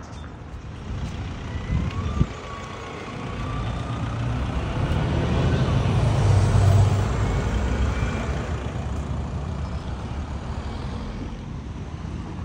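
Road traffic: a large vehicle, likely a truck or bus, passing on the street, its low rumble swelling to a peak about six to seven seconds in and then easing off. There is a single sharp knock about two seconds in.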